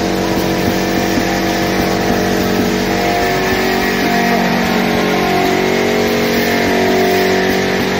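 Copper phosphorus welding ring making machine running steadily, a constant mechanical drone made of several steady tones.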